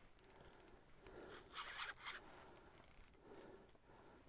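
Spinning reel working against a hooked walleye: a quick run of faint mechanical clicks near the start, then softer, intermittent whirring.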